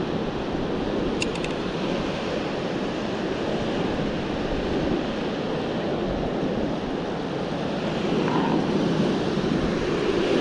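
Steady surf washing on the beach, with wind rumbling on the microphone.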